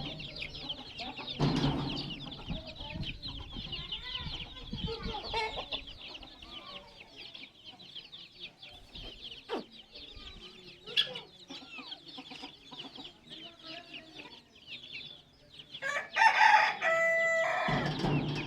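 Chickens clucking amid constant high-pitched chirping, with a rooster crowing loudly near the end.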